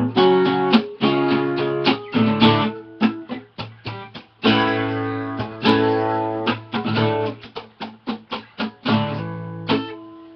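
Acoustic guitar strummed in chords, some strums ringing out between quicker strokes, with no singing.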